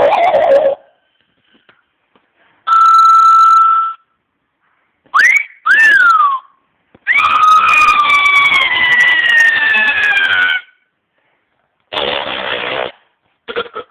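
A string of comic sound effects with short silences between them: a steady beep-like tone, a quick rising then falling glide, and a long tone that slowly slides down in pitch, followed by a short noisy burst near the end.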